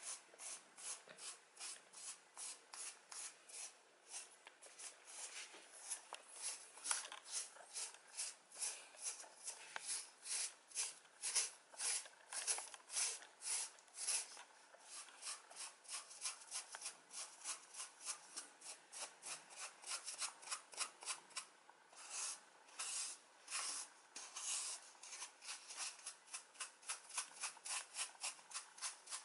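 Cat's fur being rubbed in quick, even grooming strokes, about three a second, a dry rasping sound with a couple of brief pauses.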